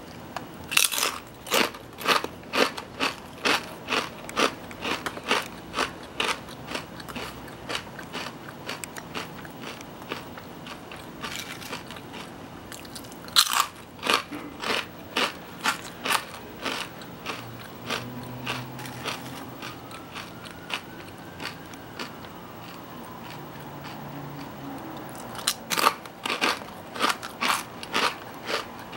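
Lay's Kettle Cooked Lattice Cut potato chips being bitten and chewed, with sharp crunches coming in three runs of quick bites and quieter chewing between them.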